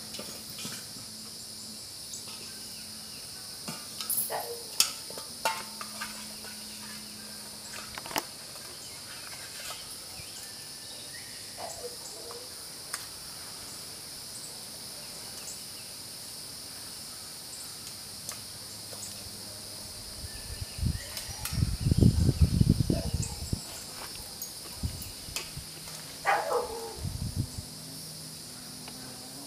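Steady, high-pitched drone of an insect chorus, with scattered sharp clicks in the first third. About two-thirds through comes a few seconds of loud low rumbling and thumping, and near the end two short calls that fall in pitch.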